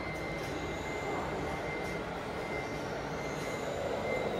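Traxxas TRX-4 RC crawler's electric motor and drivetrain whining, the pitch gliding up and down with throttle, over a steady background hiss and a constant high tone.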